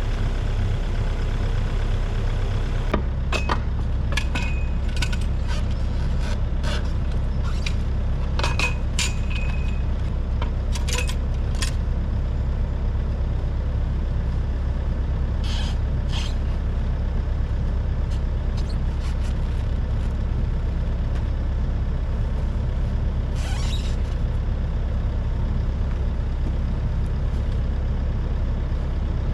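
Volvo excavator's diesel engine running steadily, its note changing about three seconds in, with scattered metallic clanks and knocks over the following ten seconds and two short hisses later on.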